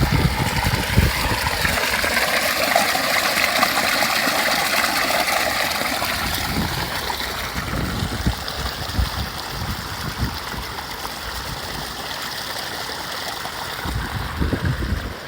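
Water rushing in a strong, steady flow through rice paddy water, swollen by heavy rain. Wind gusts buffet the microphone now and then, and the rush eases slightly towards the end.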